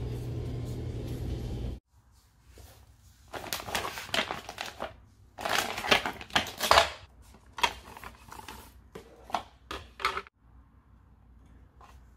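Clear plastic wrapping crinkling and rustling in irregular, uneven bursts as a small round standing mirror is unwrapped and put together by hand, after a steady low hum in the first two seconds. The crinkling stops about ten seconds in.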